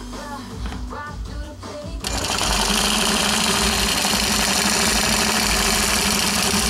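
Longarm quilting machine, quiet at first, starts up about two seconds in and then stitches loud and steady.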